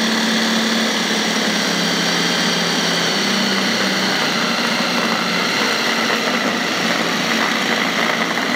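Bullet mixer grinder's motor running steadily, its chopper-bowl blade kneading flour and water into chapati dough. The hum drops a little in pitch about a second in.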